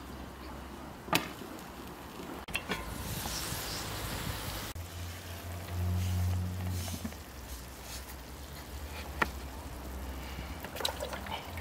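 Scattered knocks and light scrapes of a cast-iron frying pan being set on a table and chopped herbs being scraped off a board into it, over a low rumble that swells about halfway through.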